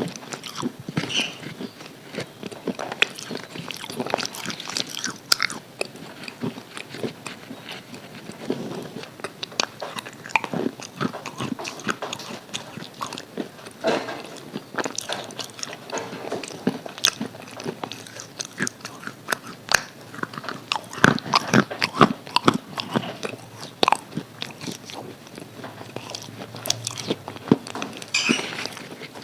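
Crispy KFC fried chicken being bitten and chewed close to the microphone: irregular, crackling crunches of the breaded coating, some bites louder than others.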